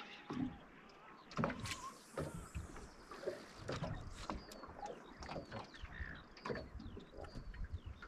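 Small waves lapping and slapping against the hull of a small aluminium boat, with irregular knocks and splashes over a low rumble.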